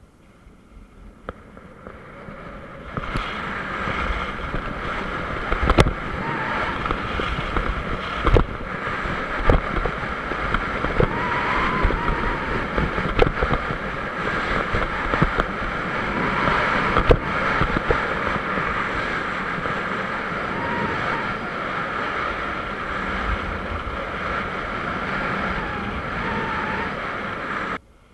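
Skis running and scraping over packed snow during a fast downhill run, with wind rushing over the action camera's microphone; the noise builds over the first few seconds as speed picks up and is broken by a few sharp knocks. It cuts off suddenly near the end.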